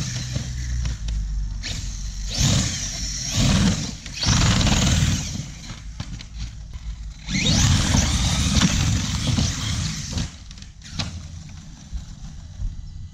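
Electric motor and drivetrain of a Hobao 1/8-scale monster truck on 8S LiPo whining in several bursts of throttle, the pitch rising as it speeds up; the longest burst comes past the middle.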